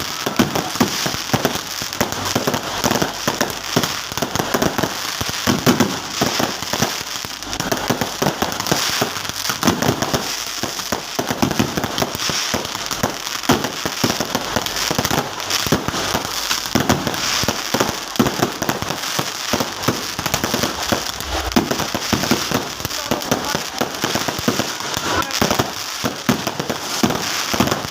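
Fireworks going off in a dense, continuous crackle of rapid small pops, with no single big bang standing out.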